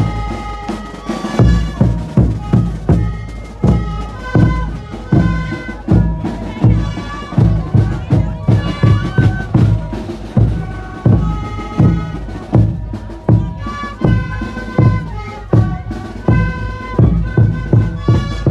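Andean festival band music: a group of end-blown wooden flutes playing a reedy melody together over a steady beat from a large bass drum and a smaller drum, about two strokes a second.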